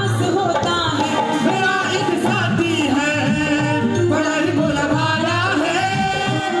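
Hindi devotional bhajan performed live: a woman singing into a microphone over a dholak beat and keyboard accompaniment.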